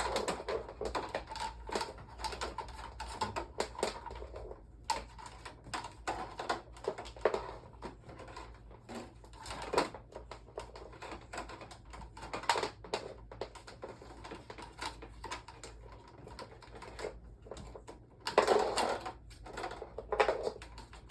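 Irregular clicks, taps and knocks of a fan being handled and set up, with a cluster of louder knocks near the end, over a faint steady low hum.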